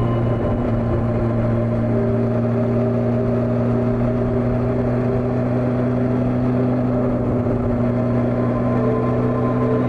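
Old Honda CB400 motorcycle engine running steadily at an even cruising pace.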